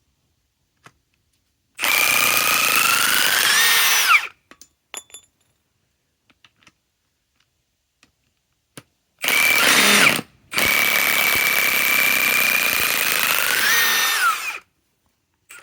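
Milwaukee M18 Fuel 2967-20 high-torque cordless impact wrench hammering on lag screws in three runs: about 2.5 seconds starting about two seconds in, a short burst around nine seconds, then a four-second run. The motor whine rises in pitch near the end of the longer runs.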